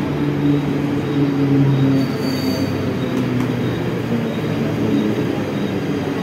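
Mumbai suburban EMU local train rolling along the platform and slowing. The electric traction motors hum in steps that fall in pitch, over steady wheel-and-rail rumble, with a thin high squeal.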